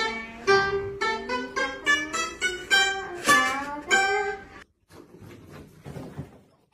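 Round-bodied Chinese lute plucked in a quick melody of single picked notes, several a second. The playing cuts off suddenly about four and a half seconds in, leaving only faint low noise.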